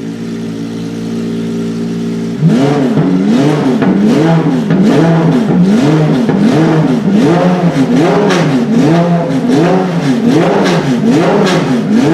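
Car engine idling steadily, then blipped hard over and over from about two and a half seconds in, its pitch rising and falling with each rev a little more than once a second.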